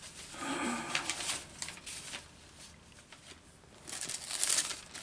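Thin Bible pages being leafed through, rustling in two spells: about half a second in and again near the end.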